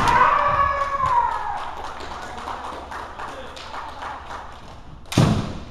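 Kendo sparring: a sharp shinai strike at the start with a long kiai shout falling in pitch over about a second and a half, then light clacking of bamboo swords and feet. About five seconds in, a loud strike lands with a heavy foot stamp on the wooden floor.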